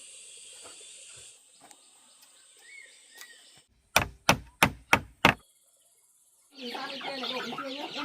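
Five sharp knocks in quick succession, about three a second, followed by a flock of chickens clucking over the last second and a half; a couple of faint bird chirps come earlier.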